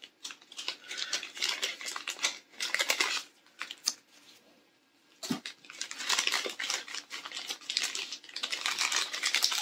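Packaging crinkling and rustling in quick crackly bursts as small items are taken out of a shipping box, with a pause around the middle and a soft thump about five seconds in.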